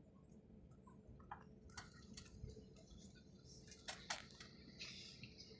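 Near silence in an airliner cabin: a faint low steady hum, with scattered light clicks and ticks, the loudest pair about four seconds in.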